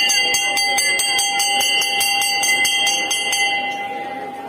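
Hanging brass temple bell rung by hand, its clapper struck rapidly at about four strokes a second over a steady ringing tone. The strokes stop near the end and the bell rings on, fading.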